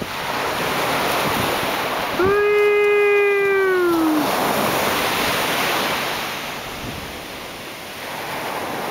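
Ocean surf breaking and washing up the beach, with wind on the microphone. A little over two seconds in, a voice holds one long note for about two seconds, falling in pitch as it ends.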